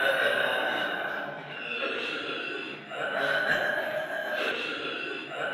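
Zombies growling and rasping, hoarse breathy moans that swell in waves about every second and a half.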